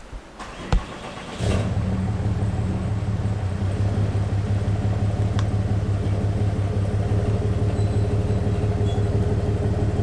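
A couple of sharp knocks, then a pickup truck's engine starts about a second and a half in and runs steadily.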